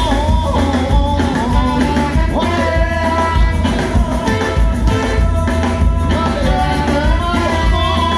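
A live band playing ska-flavoured rock during a sound check, a melody line riding over steady bass and drums.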